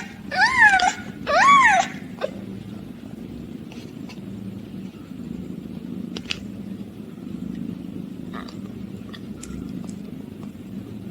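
An eight-day-old kitten gives two high mews that rise and fall in pitch within the first two seconds, then purrs softly and steadily with slow swells.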